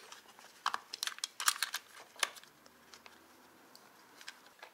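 A quick run of sharp plastic clicks and taps about one to two seconds in, then a few faint ones. They come from handling a hard plastic ATV handlebar pod and fitting a red switch into it.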